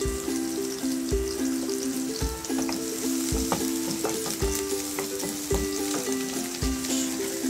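Diced onion sizzling and crackling in hot oil in a nonstick wok, stirred with a wooden spatula. Background music with a steady beat about once a second plays over it.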